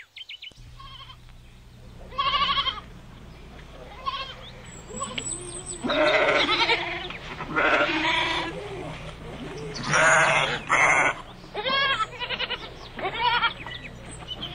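A flock of sheep and lambs bleating: a string of wavering calls, one after another and sometimes overlapping, starting about two seconds in, the loudest around the middle.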